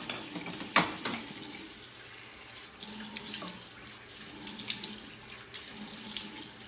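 Tap running into a bathroom sink while she rinses cleanser off her face, hands splashing water up in irregular splashes, with a sharper splash a little under a second in.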